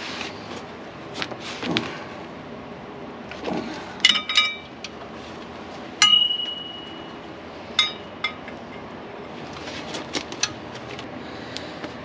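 Steel hand tools clinking against metal brake parts as a caliper bracket is fitted: a quick cluster of ringing clinks about four seconds in, a sharper clink about six seconds in that rings on for about a second, and another near eight seconds, over softer handling noise.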